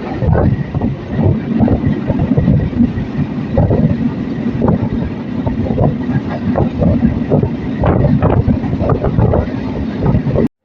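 Passenger train in motion, heard from on board: a steady, loud rumble with irregular rattling and clatter. It cuts off suddenly near the end.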